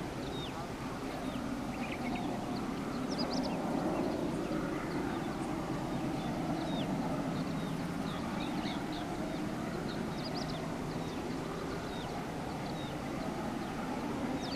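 Distant WDG-3A diesel locomotive, an ALCO 16-cylinder, running with its passenger train: a steady low rumble. Small birds chirp over it throughout.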